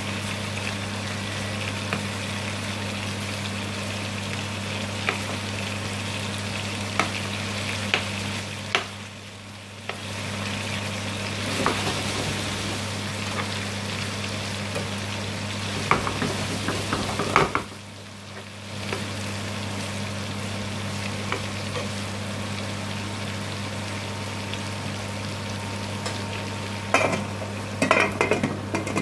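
Chicken drumsticks sizzling in sauce in a non-stick frying pan, with a metal spoon clinking and scraping against the pan as they are turned. Near the end, a run of clatters as a metal lid is set on the pan.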